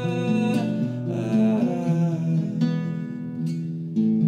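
Acoustic guitar playing held chords and notes, with a man singing a melody over roughly the first two seconds. Fresh strums come in near the end.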